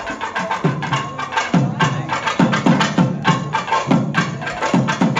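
Music with rhythmic drumming: repeated deep drum strokes, each dropping in pitch, over a busier higher part.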